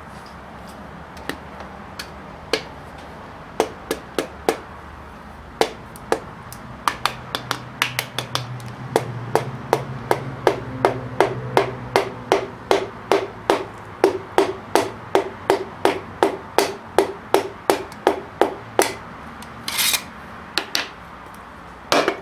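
Hammer blows, a few scattered strikes at first and then a steady run of taps about two or three a second, each with a slight ring. A short rasping noise comes near the end.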